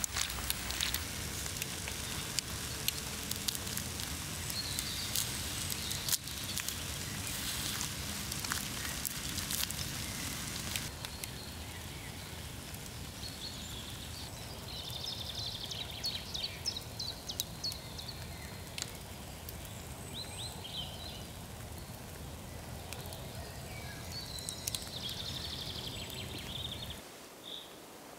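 Swedish torch fire (an upright split log burning from within) crackling and sizzling, with many sharp pops, busiest for about the first ten seconds and quieter after that.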